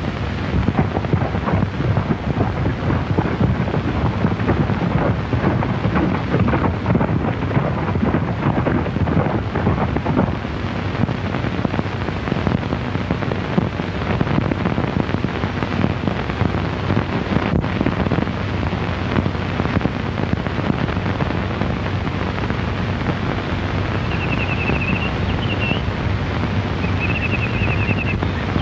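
Continuous rushing, crackling noise like heavy rain, without speech, from the worn soundtrack of an early sound film. A faint warbling tone comes in twice near the end.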